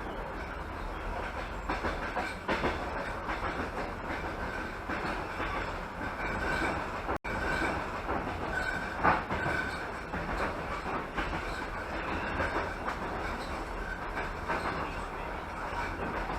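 Passenger train coach running along the track: a steady low rumble with wheels knocking irregularly over rail joints and switches, and a faint intermittent wheel squeal around the middle. The audio drops out briefly about seven seconds in.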